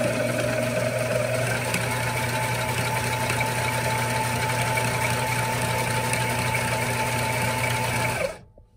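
TuffSew portable walking foot sewing machine running steadily as it stitches a strap, its small motor and belt speed reducer giving an even hum; it stops near the end.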